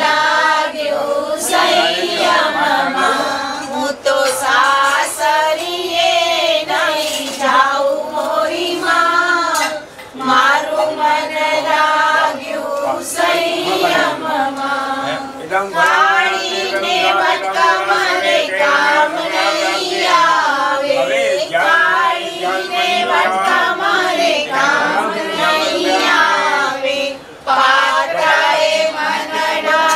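A group of voices singing a devotional song in chorus, with brief breaks between phrases about ten seconds in and near the end.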